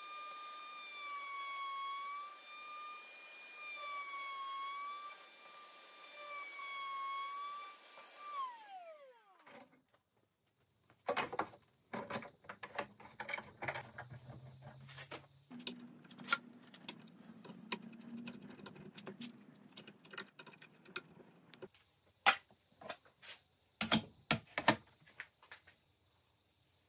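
Table-mounted wood router with a bearing-guided bit running with a steady high whine, pitch wavering slightly, then switched off about eight seconds in, the whine falling quickly as the motor spins down. After a short gap come scattered sharp clicks and knocks, the loudest near the end.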